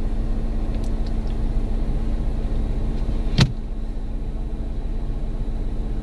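Jeep Compass engine idling steadily, heard from inside the cabin, with a single sharp click about three and a half seconds in.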